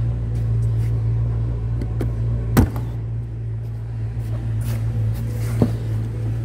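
A steady low hum, with one sharp thump about two and a half seconds in and a lighter knock near the end.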